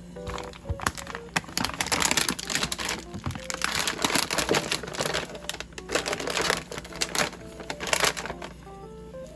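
Packaging being handled: a dense run of clicks and rustling, loudest through the middle, over soft background music.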